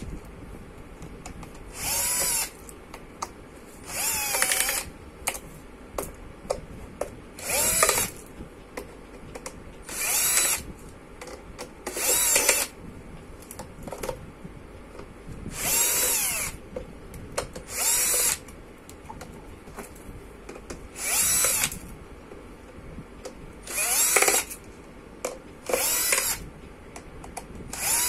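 Bosch cordless drill-driver running in about a dozen short bursts, roughly one every two seconds, each a whine that rises and falls as it spins up and stops, backing screws out of a metal charger casing. Small clicks and taps come between the bursts.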